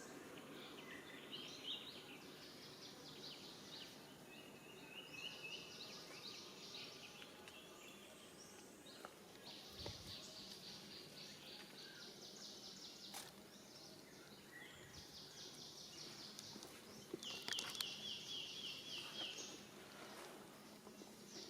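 Faint outdoor ambience of birds calling in rapid high-pitched trills and chirps, one after another, the clearest trill coming near the end.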